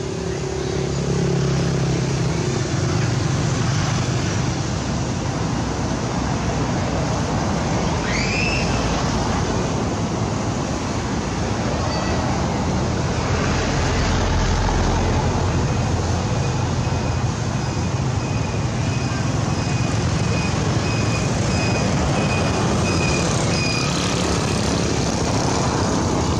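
Steady background noise of road traffic, a loud, even rumble and hiss. A brief rising squeak comes about eight seconds in, and a faint high tone repeats steadily in the second half.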